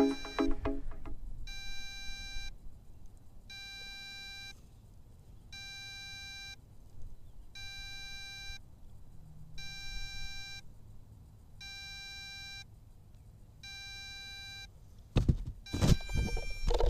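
Electronic beeper on an MJX Bugs 3 quadcopter sounding a steady one-second beep about every two seconds, seven times. Near the end come loud knocks and rustling as the drone is picked up.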